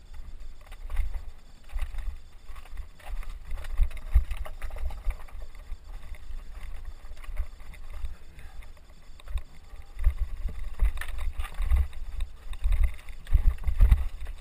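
Mountain bike riding over loose rocks and scree: irregular knocking, rattling and crunching of the tyres and bike over stones, with low thuds from the jolts. It gets busier and louder in the last few seconds.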